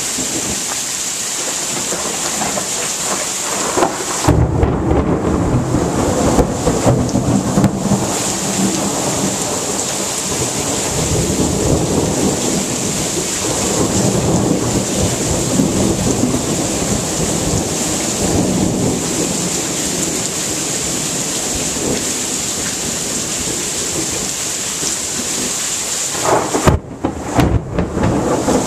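Steady heavy rain during a thunderstorm. About four seconds in, a long low rumble of thunder starts and rolls on for over ten seconds.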